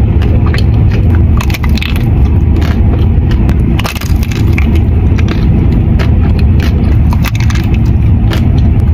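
Close-miked eating sounds: a person chewing and crunching a bite of dessert, with many small crackles and clicks over a low, steady rumble.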